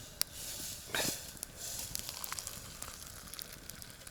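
Campfire crackling, with a brief hiss early on and one sharp knock about a second in.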